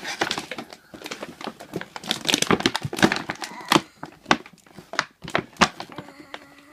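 Small plastic toy tools and packaging being handled: a quick, irregular run of clicks, taps and knocks mixed with crinkling and rustling.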